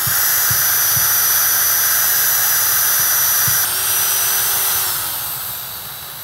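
Battery-powered drill spinning fast with a cardboard toilet-roll tube on its chuck, winding old fishing line off a reel spool: a steady high whine with a hiss. It dips briefly about three and a half seconds in, then eases off and gets quieter near the end as the drill slows near the bottom of the spool.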